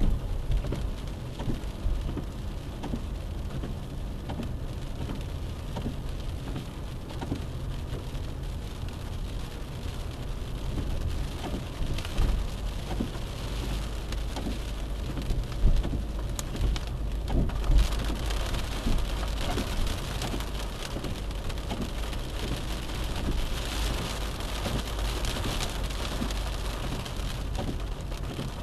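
Car running along a road, heard from a windshield-mounted dash cam: steady engine and tyre rumble with many small clicks and rattles, and a few louder knocks around the middle.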